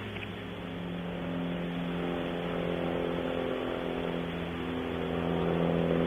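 An engine drone: a steady pitched hum that swells gradually, louder near the end.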